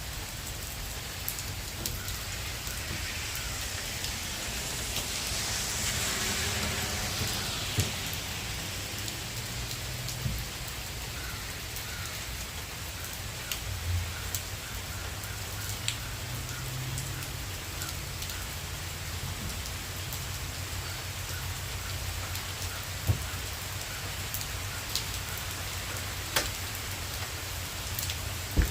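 Steady rain from a tropical storm falling outside, a continuous hiss with scattered sharp drip ticks. The rain swells briefly about six seconds in.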